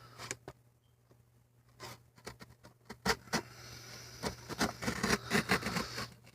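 X-Acto knife cutting and prying at a toy's plastic blister and cardboard backing card: scattered scrapes and clicks. They are sparse at first and grow busier from about halfway through.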